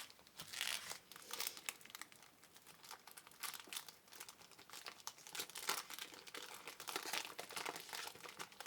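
Trading-card pack wrappers crinkling and tearing as packs are torn open by hand, a run of irregular rustles.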